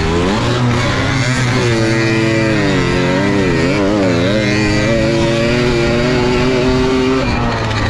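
Tuned Balkan 50 moped's small two-stroke engine under racing throttle, its pitch climbing, wavering up and down a few seconds in, holding high, then dropping near the end.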